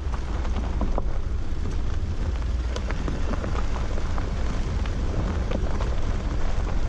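Porsche Cayenne Turbo's tyres rolling over a loose gravel and stone track at speed, heard close to the wheel: a steady deep rumble with constant crackling and many small ticks of stones flicked up.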